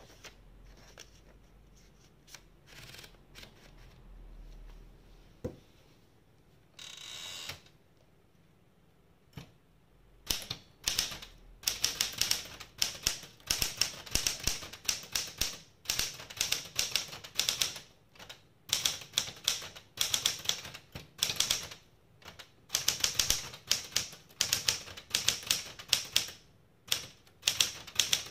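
Smith-Corona Galaxi Deluxe manual typewriter being typed on: quick runs of key and type-bar strikes in bursts with short pauses, starting about ten seconds in. Before that come scattered light clicks and a short rasping sound.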